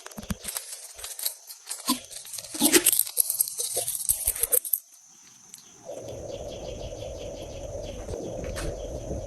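Slime being worked by hand: a dense run of small crackles and pops for about five seconds, loudest around the middle. After a short lull, a steady low rumble with faint ticks takes over.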